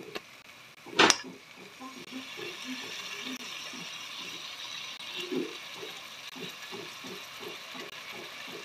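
Yogurt going into hot oil and fried onions in a pot: a sharp knock about a second in, then the oil sizzling steadily, with a faint regular ticking about three times a second underneath.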